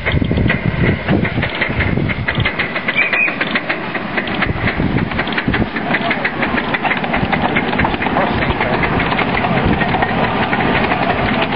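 Miniature live-steam tank locomotive hauling a ride-on passenger train, a fast, even beat of exhaust and wheels clicking over the rails.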